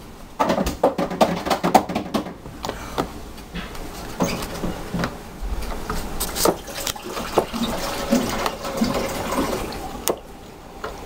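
A slotted spoon stirring Jello mix and water in a plastic tub: liquid sloshing, with the spoon clicking and knocking against the sides, most densely in the first few seconds.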